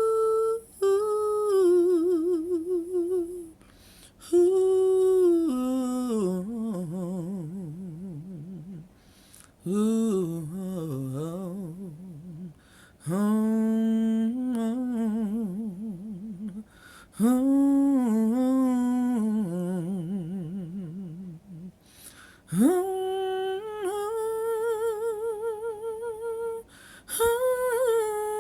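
A single voice humming and wailing wordless, melismatic phrases with a strong, wavering vibrato, each phrase sliding down in pitch and ending in a short pause for breath, about seven phrases in all.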